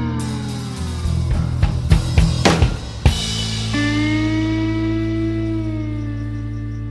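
Background rock music with a drum kit, a steady bass line and a long held lead note that bends slightly.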